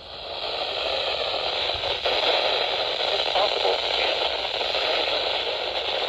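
Steady radio static hiss from a weather radio receiver. The broadcast voice has dropped out and the receiver is picking up noise instead of a clear signal.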